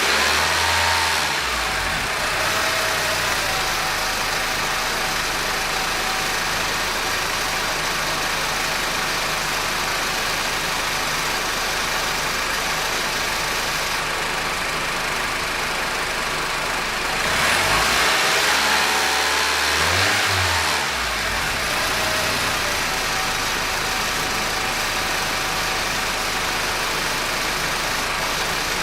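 Honda R18 four-cylinder engine running, with the worn drive-belt tensioner bearing making an intermittent buzzing "zzzzz" noise. The sound swells and turns harsher twice: near the start and for a few seconds about two-thirds of the way through.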